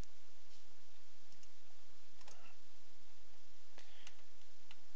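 Computer mouse clicking a few times at uneven intervals over a steady low hum.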